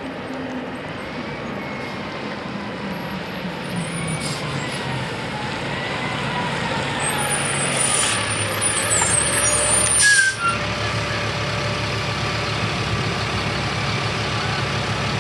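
A Thomas Built school bus's diesel engine, pulling up close and then running steadily. Two short air-brake hisses come about eight and ten seconds in as it stops.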